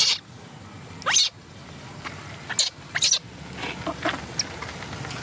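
Baby macaques giving short, shrill squeals and cries, several in a row. One call about a second in rises sharply in pitch.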